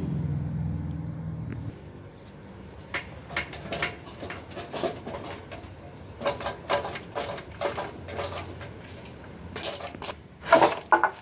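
Metal clinks and knocks as a car's gearbox is pulled back off the engine and lowered, with a low hum for the first couple of seconds. The loudest cluster of knocks comes near the end.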